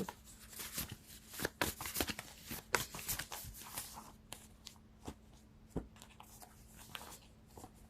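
A deck of cards being shuffled by hand, a faint run of irregular papery clicks and riffles.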